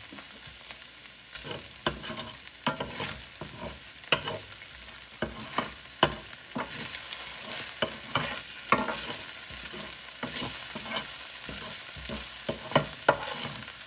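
Minced garlic sizzling in hot oil in a stainless steel frying pan while a metal spoon stirs it, the spoon scraping and knocking against the pan many times at an uneven pace.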